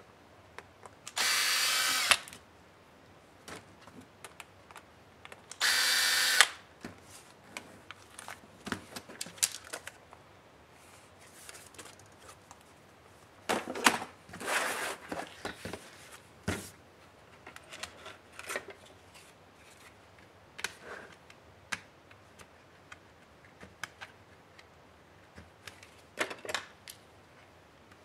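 Cordless drill-driver run twice, about a second each, removing screws from a laptop's keyboard deck. These are followed by scattered clicks, taps and rustles of plastic laptop parts and cables being handled.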